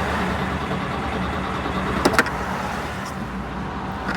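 Citroen GSA's air-cooled flat-four engine idling roughly, not firing on all cylinders because its ignition is wet from a jet wash. Two sharp clicks about two seconds in.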